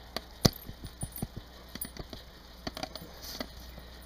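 Handling noise from a dog harness and its metal buckle and clips: a string of irregular clicks, light knocks and small jingles, with one louder knock about half a second in.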